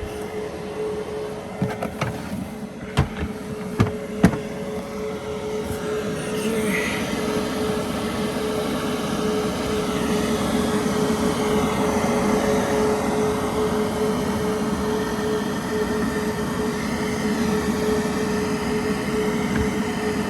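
Webasto gasoline air heater running at full blast: a steady droning hum with a constant whine from its fan. A few sharp clicks and knocks come in the first few seconds.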